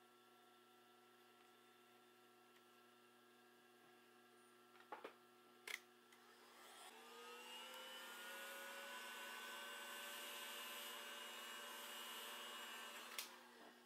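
After a couple of clicks, a handheld heat gun starts up, its fan whine rising in pitch as it spins up, then blows steadily with an airy hiss for about five seconds before stopping with a click near the end.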